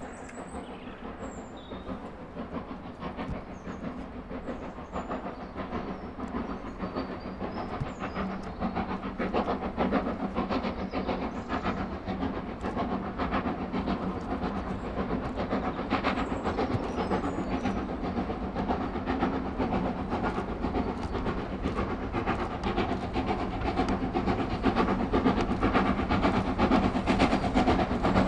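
Ex-LMS 3F 'Jinty' 0-6-0 steam tank locomotive hauling a short train of freight wagons, getting steadily louder as it approaches, with the clatter of wheels and wagons.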